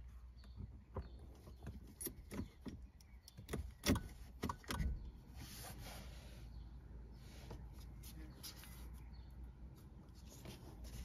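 Soft clicks and small knocks from the ignition key and key ring being turned in the lock, with the dashboard reset button held, bunched in the first five seconds. A brief hiss follows about five seconds in, over a faint low hum.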